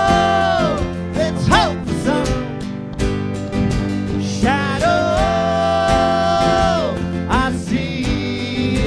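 Live country-style acoustic music: acoustic guitar playing under two long held melody notes, one at the start and another from about four and a half seconds in.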